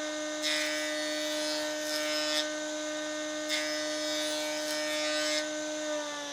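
Electric power tool motor whining at a steady pitch while working wood, with stretches of louder hissing noise that come and go. The whine sags slightly just before the sound cuts off abruptly at the end.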